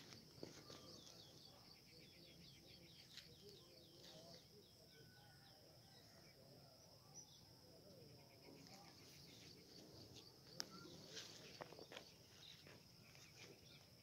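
Faint outdoor field ambience: insects keep up a steady high-pitched drone, with runs of rapid chirps over it and a few sharp clicks.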